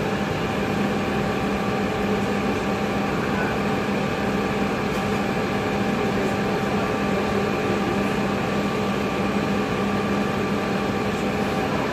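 2002 Nova Bus LFS transit bus's diesel engine running steadily: an even hum with a few held tones and no change in pitch or level.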